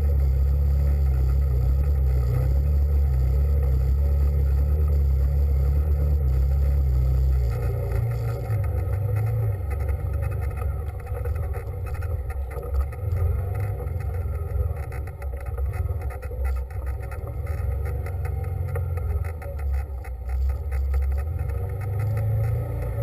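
A vehicle in motion: a steady, heavy low rumble for about seven seconds, then a rougher, uneven rumble broken by many short knocks and rattles.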